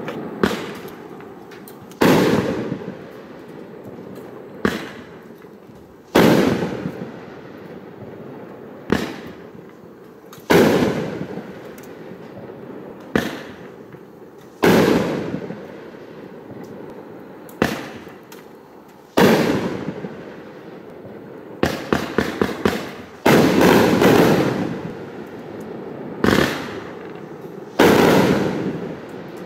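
A 25-shot consumer firework cake firing brocade shells in turn, about one every four seconds. Each shell gives a small launch report and, about one and a half seconds later, a louder bang with a long fading tail. About two-thirds of the way through, a quick string of about six shots runs into a longer loud stretch.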